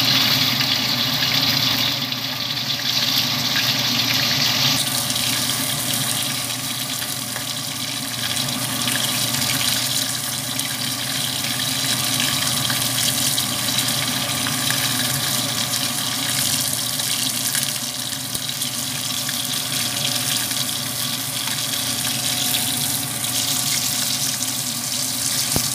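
Pot of duck soup boiling on a gas stove: a steady rush of bubbling broth.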